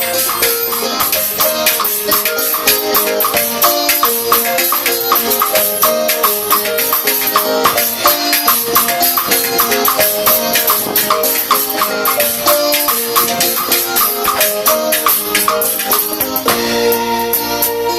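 Live band music at a soundcheck: a fast, steady percussion rhythm over a line of melodic notes. Near the end the playing shifts to fuller, longer-held notes.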